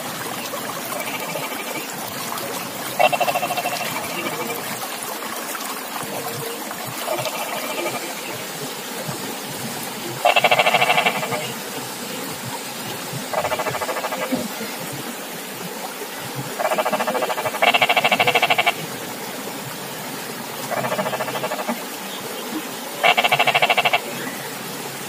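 Frogs calling: pulsed croaking calls about a second long, repeating every two to three seconds, some louder than others, over a steady background hiss.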